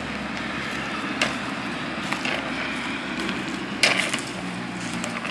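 Male blackbucks clashing horns: a few sharp, woody clacks, the loudest about four seconds in, over a steady low hum.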